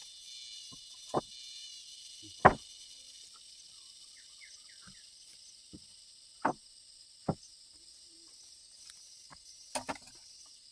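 A few short, sharp knocks spaced a second or more apart, the loudest about two and a half seconds in, over a faint steady high hiss.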